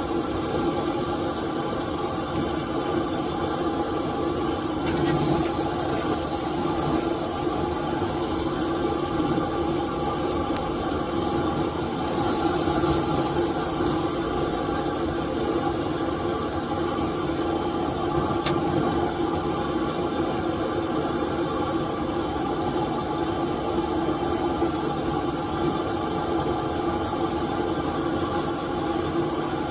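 A steady mechanical hum with a strong low drone, unchanging in level and pitch.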